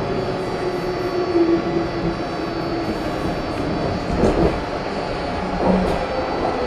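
A 1983 Budd subway car running at speed, heard from inside the car: a steady rumble of wheels on rail with a few held tones from the running gear, and two low thumps about four and six seconds in.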